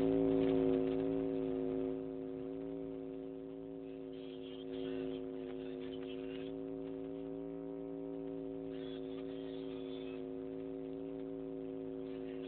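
Steady electrical hum of several held tones, unchanging, with faint hiss coming and going above it.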